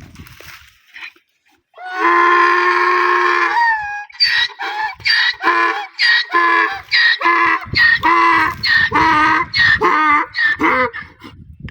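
Donkey braying: a long held note starting about two seconds in, then a rapid run of alternating hee-haw calls, about two a second, that stops near the end.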